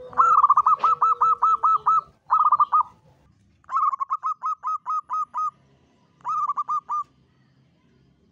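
Zebra dove (perkutut) singing its cooing song: four runs of short, rapid coos, two long runs of about eight or nine notes and two short runs of four or five, with pauses between.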